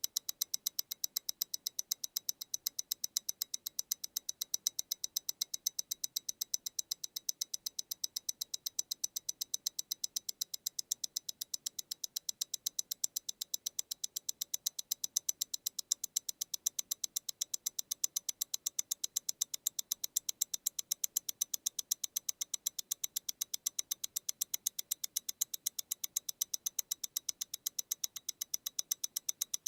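MEMORIGIN Stellar tourbillon mechanical wristwatch ticking close up, an even, rapid run of crisp ticks from its movement beating at 28,800 vibrations per hour, about eight ticks a second.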